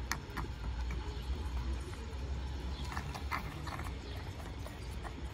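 Two cats eating wet cat food from a plastic tub: short, wet smacking and chewing clicks, a pair near the start and a cluster about three seconds in.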